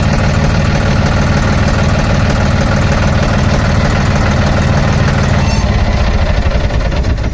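Tractor diesel engine idling steadily just after being started, its note shifting slightly about five seconds in.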